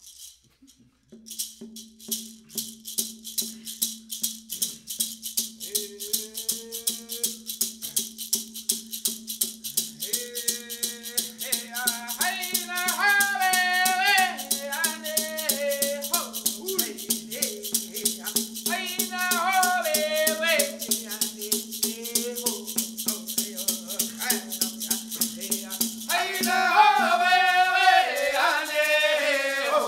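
Women's dance song: a rattle shaken in a steady beat starting about a second in, with singing joining from about six seconds in and coming louder in phrases, loudest near the end. A steady low hum runs under it and stops near the end.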